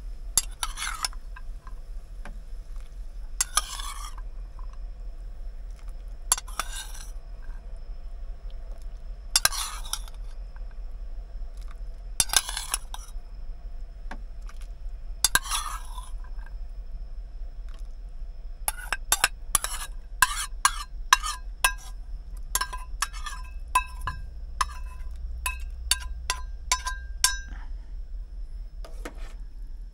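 A spoon stirring in a pot in six slow strokes about three seconds apart, then a quick run of clinks of utensils against cookware that ring briefly. A steady low hum runs underneath.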